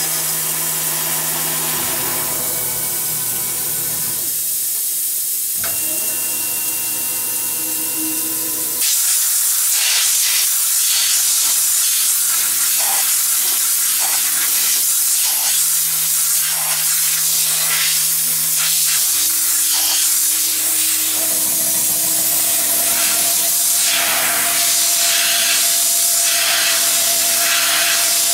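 4-inch side milling cutter on a Tormach PCNC 1100 mill slotting an aluminium heat sink, a steady machining noise with faint tones that shift as it cuts. About nine seconds in, a compressed-air blow gun starts a loud, steady hiss to clear chips from the slot, and it keeps on.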